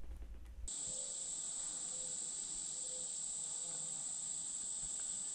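Steady, high-pitched chorus of insects in a summer field, cutting in suddenly under a second in and holding unbroken.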